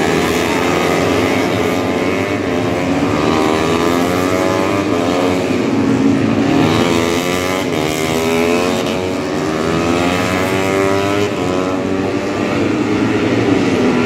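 Several racing motorcycle engines running hard as the bikes pass through a corner. Their overlapping pitches rise and fall as the riders brake, shift gears and accelerate.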